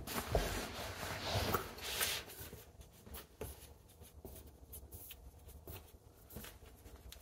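Rustling, scraping and scattered small clicks as the backing of a cheap picture frame is handled and worked on by hand; busiest in the first two seconds, then fainter and sparser.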